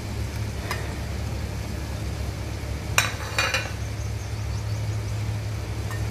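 A glass plate clinking twice against the marble counter or the other glass plate as it is set down, about three seconds in, over a steady low hum.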